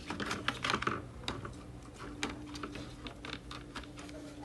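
Irregular light clicks and taps of tools and small parts being handled at an electronics repair bench, coming thick in the first two seconds and then sparser over a faint steady hum.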